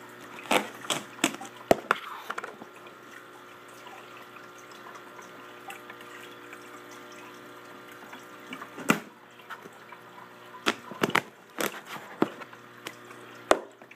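Aquarium filter running with a steady hum and water trickling, broken by sharp clicks and taps in a cluster near the start and again in the second half.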